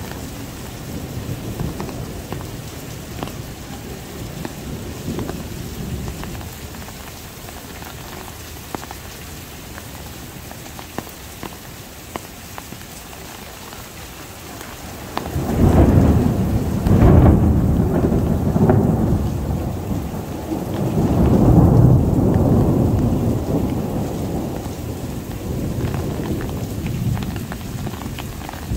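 Heavy summer downpour with a steady hiss of rain and scattered drips. About halfway through, thunder breaks out suddenly and rolls on in two long swells of low rumbling, fading slowly toward the end.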